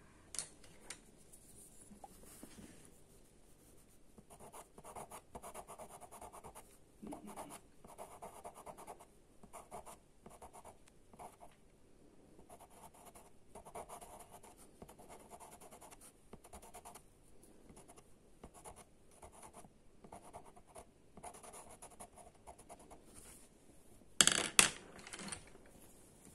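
Pastel pencil scratching on sanded pastel card (Pastelmat) in many short, irregular strokes as colour is laid into a drawn eye. Near the end there is a brief, louder clatter.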